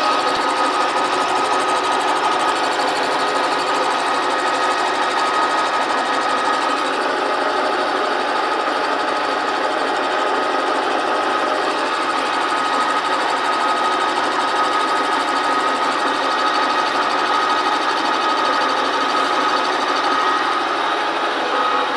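A Milko 14 milling machine running at 795 rpm, its uncoated HSS bimetal cutter cutting H52 steel. It makes a steady cutting noise with a constant high whine.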